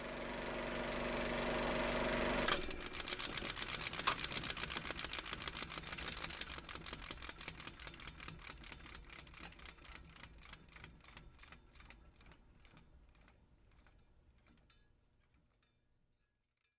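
Bicycle freewheel hub ticking as the wheel coasts down: a faint low hum swells for about two and a half seconds, then rapid even clicks start, slowing and fading until they die away about twelve seconds in.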